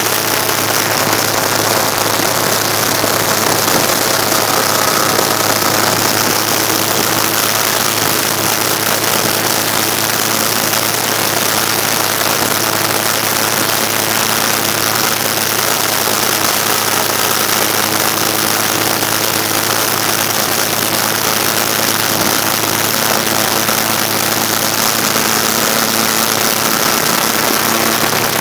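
Airboat's engine and air propeller running steadily while under way, a loud even drone with a constant low hum.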